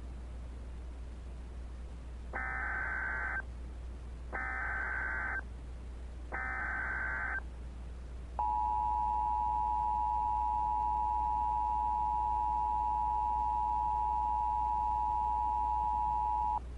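Emergency Alert System tones: three one-second bursts of SAME header data, two seconds apart, then the EAS two-tone attention signal (853 and 960 Hz) held steadily for about eight seconds. A low steady hum runs underneath.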